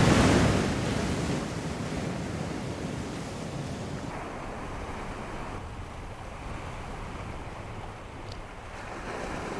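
Sea waves breaking against rocks: a big wave crashes loudly right at the start, then the surf keeps washing and draining off the rocks more softly.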